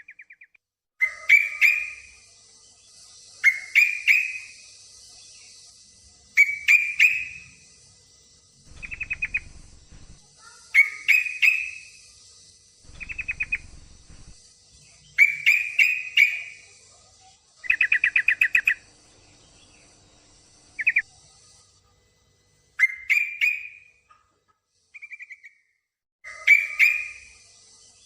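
Sooty-headed bulbul calls, the uploader's lure of a female in breeding condition calling a male: short chirping phrases repeated every two to three seconds, some given as quick even trills. A steady high hiss runs beneath, dropping out for a few seconds past the middle and returning near the end.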